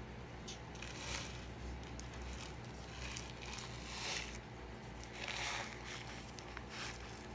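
Plastic film wrapped around a cup noodle crinkling in short spurts as the cup is turned in the hand, over a steady low hum.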